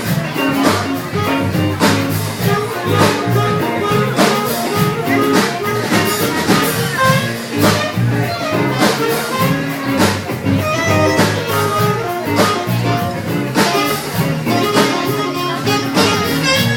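Small live band playing a jazz-blues number, with a steady drum beat under sustained instrumental notes.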